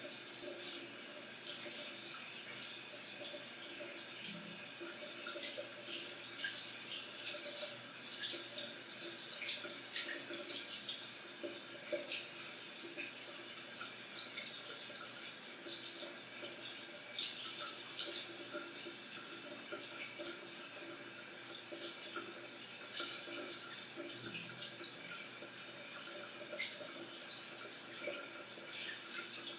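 Locker room shower running: a steady hiss of spraying water, with many small splashes and drips throughout.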